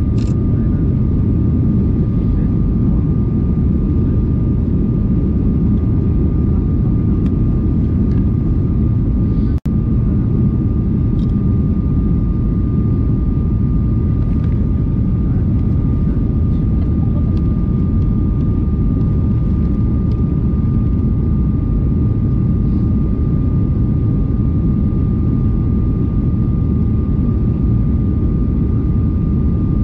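Jet airliner cabin noise while the aircraft climbs out after takeoff: a steady low rumble of the engines and airflow, with a thin steady high whine on top. The sound cuts out for an instant about ten seconds in.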